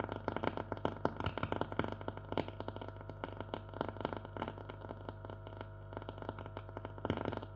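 A 1939 Mende Super MS216-W valve radio's loudspeaker giving crackling static over a steady low hum, with no station coming through.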